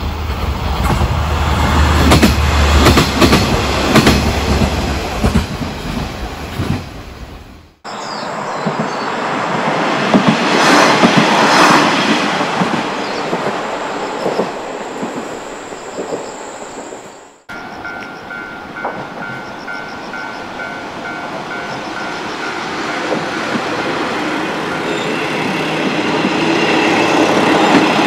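KiHa 40-series diesel railcars running past on the track, heard in three short cuts with a low rumble in the first. In the last cut a level-crossing bell rings in a steady repeating pattern for about five seconds as the red railcar rolls through the crossing.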